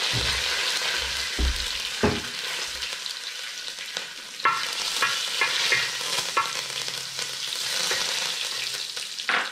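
Curry leaves and dried red chillies sizzling in hot coconut oil with mustard seeds, a steady crackling hiss. From about halfway a wooden spoon stirs and scrapes the bronze uruli, giving a few sharp knocks.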